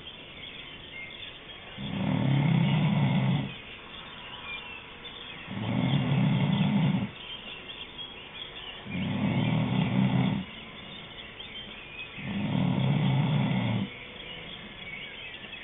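Snoring: a loud, low snore of about a second and a half, repeating at a steady rhythm about every three and a half seconds, four times over, with the next one starting right at the end.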